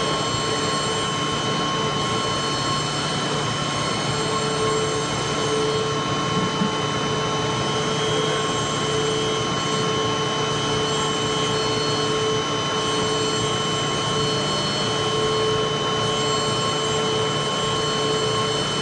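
WT62 high-frequency spindle of a dental milling machine cutting ceramic: a steady whine of several fixed pitches over a continuous hiss, the lowest pitch waxing and waning.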